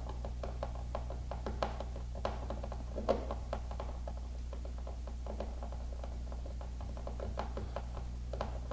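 Phillips screwdriver driving a screw through a plastic base plate into a plastic wall anchor: a run of small irregular clicks and creaks as the screw turns, with a few louder clicks between about one and a half and three seconds in.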